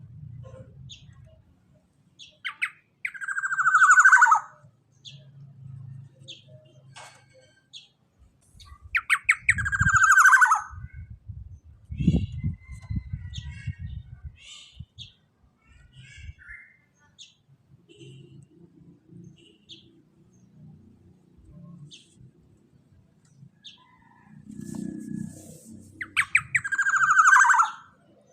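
Black-naped oriole (kepodang) giving three loud harsh calls, each a quick stutter sliding into a drawn-out falling note, with faint scattered chirps between. Low thumps and rumble sit underneath, strongest about twelve seconds in.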